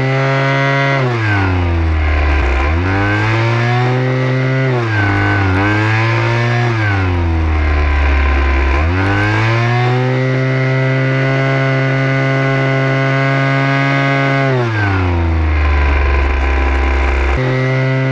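Ryobi RY25AXB 25cc two-stroke jet fan leaf blower running and being revved: the engine speed rises and falls several times, holds at high revs for about five seconds, drops back low, then jumps straight back up to high revs just before the end.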